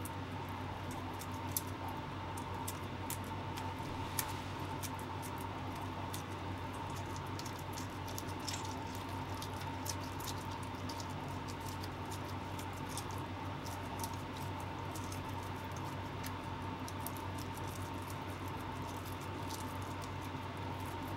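Fingers peeling and pulling apart raw mirugai clam flesh during cleaning, making many small wet, sticky clicks and squelches over a steady low hum.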